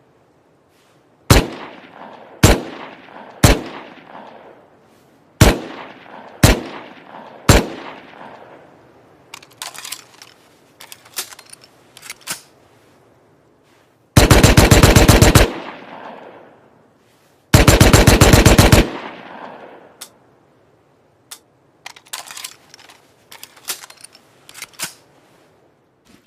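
Makeshift sound effect imitating a Thompson submachine gun. It starts with six single shots about a second apart, each with an echoing tail, then lighter rattling bursts. Two rapid full-auto bursts of about a second and a half each follow, then scattered small clicks near the end.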